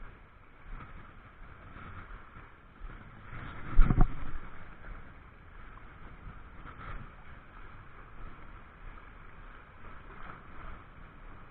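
Steady outdoor noise of wind and water, with one loud low thump about four seconds in.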